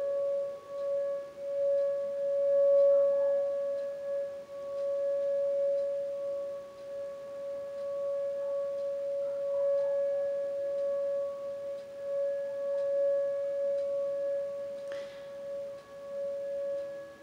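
Outdoor tornado warning siren holding one steady tone during its weekly test, after winding up in pitch. Its loudness swells and fades every few seconds while the pitch stays the same.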